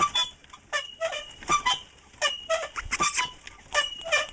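Large wooden dog exercise wheel turning on its metal pipe axle, squeaking in a steady rhythm, about once every three-quarters of a second, as a dog runs inside it.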